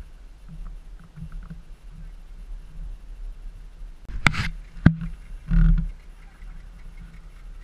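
Low steady hum of RIB outboard engines idling. A little past halfway come two loud bursts of noise with a sharp knock between them.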